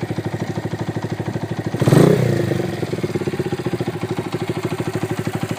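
Honda FTR223 motorcycle engine, converted to 125 cc, idling warm with a steady pulsing beat, with one short blip of the throttle about two seconds in. It runs without the abnormal engine noise it makes when cold.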